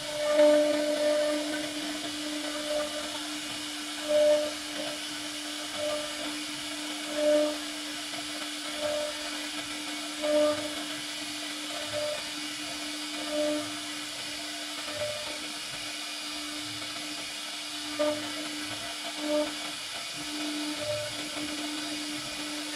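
CNC router spindle whining steadily as its bit carves khat wood, with louder swells about every second and a half.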